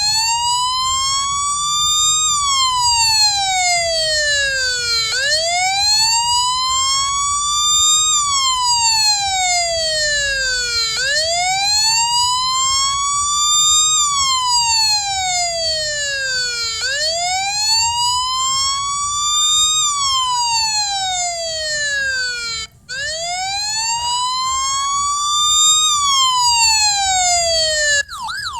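Electronic police siren in its slow wail: a harsh tone that glides up and then falls back, about five times at roughly six seconds per cycle. It cuts out for a moment about three-quarters of the way through and restarts. In the last moment it switches to a fast yelp.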